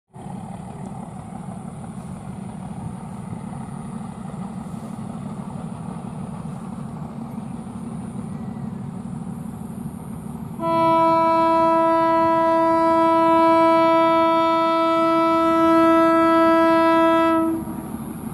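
Train horn sounding one long, steady blast of about seven seconds, starting about ten seconds in, over a steady low rumble.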